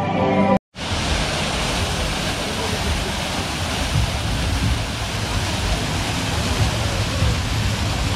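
Steady rush of water falling from artificial theme-park waterfalls cascading down rock faces. It sets in after a brief cut less than a second in.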